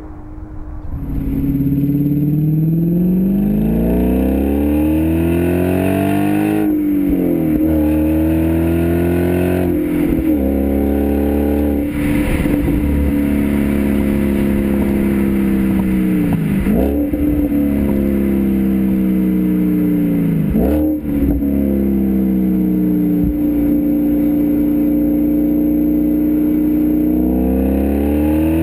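Audi S5 with an AWE Tuning aftermarket exhaust accelerating hard. The engine note climbs in pitch and drops back sharply at each gear change, several times over.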